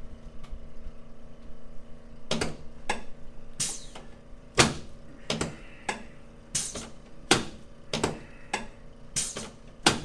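Chiropractic thrusts on the upper back of a man lying face down on an adjusting table: about a dozen sharp cracks and thumps, one every half second to a second, starting about two seconds in.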